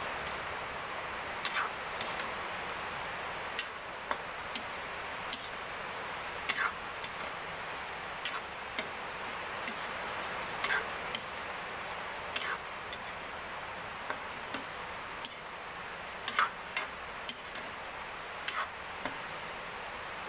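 Metal spatula knocking and scraping against a stainless steel wok as pork and diced vegetables are stirred: irregular clinks about once a second over a steady hiss.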